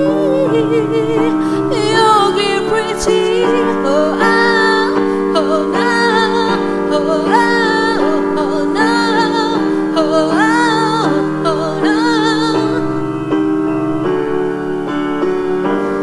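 Slow piano ballad: a woman sings long, wavering melodic notes with no clear words over sustained piano chords.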